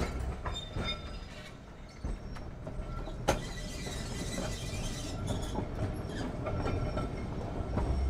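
Vintage electric tramcar running on its track, a steady low rumble with scattered clicks and one sharp knock about three seconds in.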